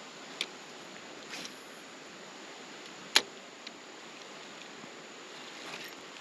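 Steady hiss of flowing river water, with a few light clicks and one sharp, loud click about three seconds in.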